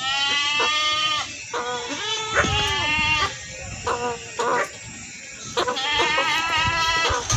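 Lamb bleating over and over. The first and last bleats are long and quavering, with shorter bleats between them.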